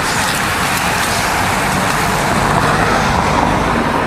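A group of racing road bicycles passing close by: a continuous rush of tyre and air noise.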